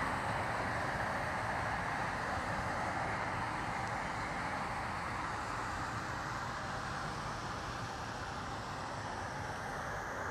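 Steady mechanical running noise of engines and machinery at the dockside crane lifts, with no distinct knocks or pitch changes.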